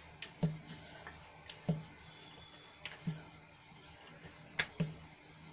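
Wooden rolling pin rolling out puri dough on a round wooden board, with soft wooden knocks about every second and a half as the strokes go back and forth.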